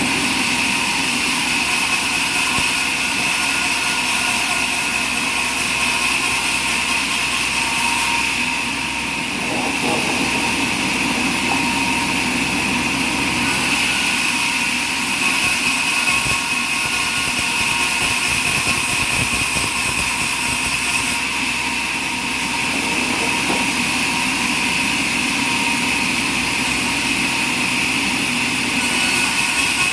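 Sawmill machinery running steadily, a continuous mechanical drone with a high steady whine over it.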